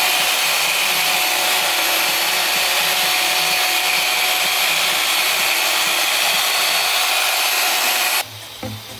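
Electric machine polisher with a foam pad running steadily on car paintwork, a constant motor whir with a high whine, during paint-enhancement machine polishing. It cuts off abruptly near the end, and electronic dance music with a beat comes in.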